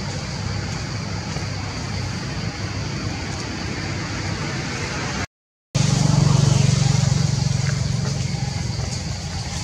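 Steady low motor-like hum with a hiss over it, broken by a brief total dropout about five seconds in, after which the hum comes back louder.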